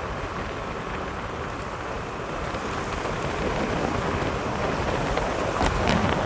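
Steady rushing wind noise on the microphone with a low rumble, as from riding in an open vehicle.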